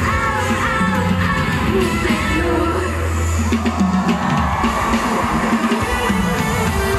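A T-pop song played over a concert sound system: a steady drum beat and a held bass line under singing.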